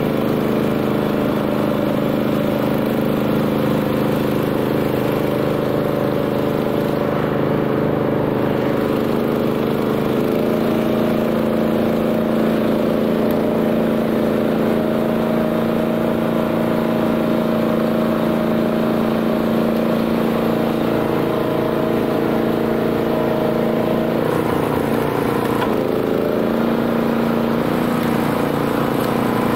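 Single-cylinder Honda GX390 engine of a BCS 740 two-wheel tractor running steadily under load while driving a flail mower. The engine note changes about ten seconds in and again around twenty-five seconds, as the load on the cutter varies.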